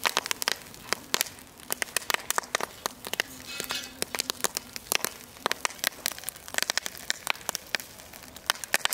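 Burning wood embers crackling and popping in a charcoal grill, with many irregular sharp snaps.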